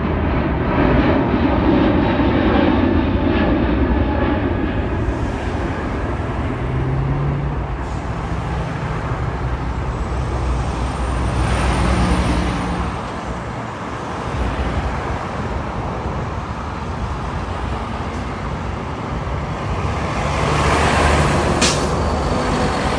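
Airbus A380-861 jet airliner passing low overhead, its four Engine Alliance GP7270 turbofans making a continuous rumble that swells and fades a few times. A short sharp click near the end.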